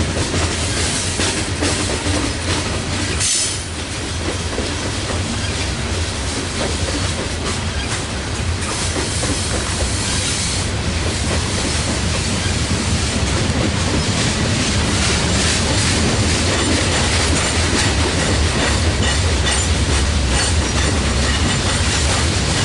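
Loaded coal hopper cars of a long freight train rolling past on a curve: a loud, steady rumble of steel wheels on rail with clickety-clack over the joints and a brief wheel squeal now and then, the clearest about ten seconds in.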